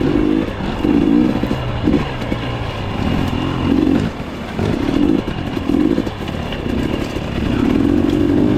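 Dirt bike engine running under load over rough trail, its revs swelling and dropping about once a second as the throttle is worked.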